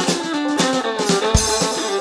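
Instrumental break of an Irish folk-rock band: a melody line over guitar and drum kit, with no singing. About one and a half seconds in, a heavy low drum hit lands together with a cymbal crash.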